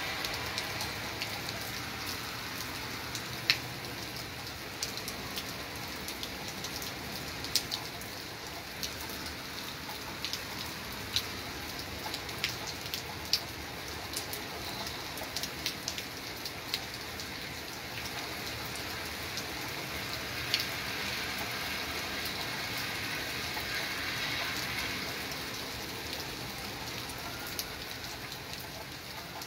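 Heavy rain falling steadily on a wet street and grass: a constant hiss with scattered sharp ticks of single drops landing.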